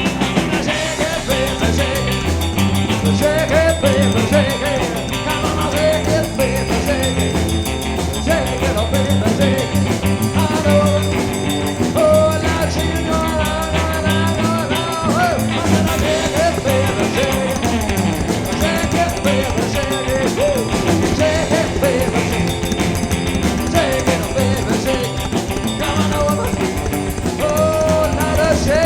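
Live rock and roll band playing loud, steady music.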